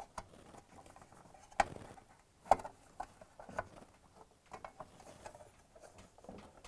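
Scattered light clicks and knocks as a shield is handled and fitted onto a washer tub, its pin being lined up with a hole.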